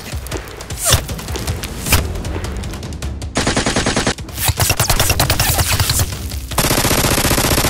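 Bursts of rapid automatic gunfire sound effects, many shots a second, in runs lasting a second or two, with faint music underneath.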